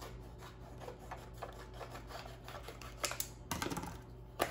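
Scissors snipping through the plastic of a vacuum-sealed bacon package, a run of small quick clicks and crackles. Near the end come a few louder plastic crinkles and knocks as the package is handled and the scissors are set down.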